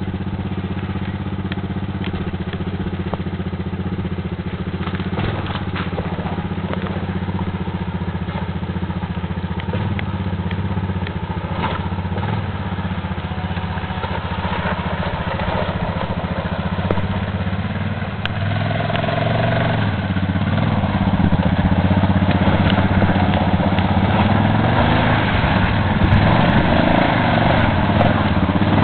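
ATV engines running under load on a steep dirt hill climb. The sound is a steady hum, and about two-thirds of the way through it grows louder and shifts in pitch as a quad comes up close.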